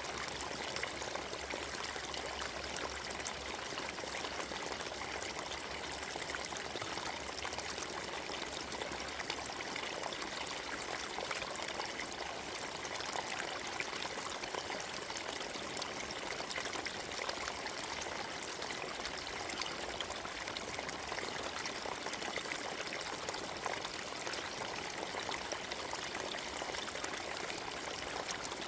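Forest stream running over stones: a steady, even rush of water flecked with small splashes and trickles.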